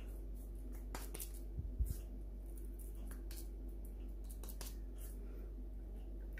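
Hands scooping and pressing a moist minced chicken shami kebab mixture into a patty: scattered soft squishes and light pats, with a dull thump about two seconds in, over a steady low hum.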